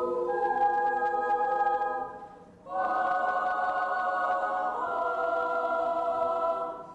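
Children's choir singing held chords in several parts. The sound fades out about two seconds in, and a new sustained chord enters about half a second later and is released near the end.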